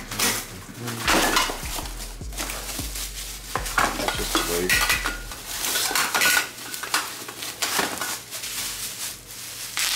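Plastic bubble wrap rustling and crinkling as bubble-wrapped metal parts are pulled out of a cardboard box, in repeated handling bursts.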